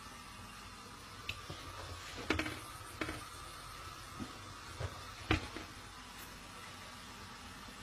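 A few faint, scattered clicks and knocks, about five, as a toddler's hands and fork handle a plate of spaghetti, over a faint steady hum.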